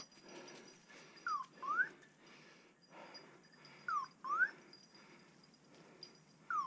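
Electronic beeper collar on a hunting setter sounding a chirp that falls in pitch, followed at once by one that rises. The identical pair repeats three times, about two and a half seconds apart.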